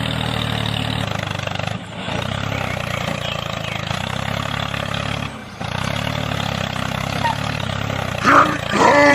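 Tractor engine idling steadily, with two brief drops in sound about two and five and a half seconds in. A man's shout comes near the end.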